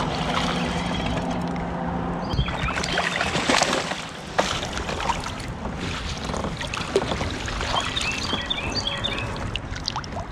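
Water splashing and sloshing around a kayak, with scattered knocks and clicks against the hull and gear.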